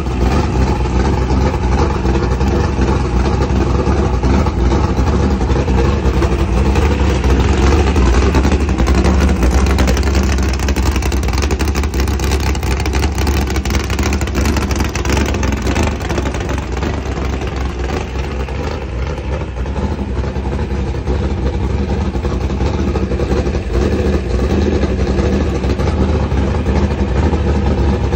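A 600-horsepower 406 small-block Chevy V8 on a run stand, running steadily at about 1,000 rpm through open headers.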